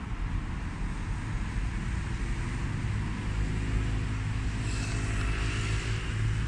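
Road traffic passing on a suburban street: cars driving by with a steady low rumble and tyre hiss. From about halfway through, a small motorcycle's engine drone comes in, with a louder rush of tyre noise near the end as vehicles pass close.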